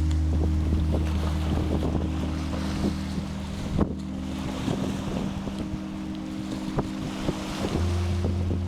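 Waves washing on the Sea of Azov shore with wind buffeting the microphone, under slow background music of held low notes that shift near the end.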